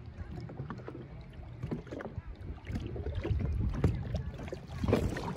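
Lake water lapping and splashing close by, with wind rumbling on the microphone, getting louder toward the end.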